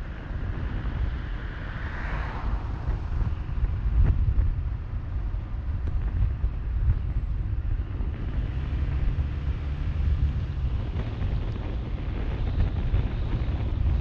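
Wind buffeting the microphone of a camera on a moving car, a steady low rumble mixed with road and tyre noise. A brief rise in hiss comes about two seconds in.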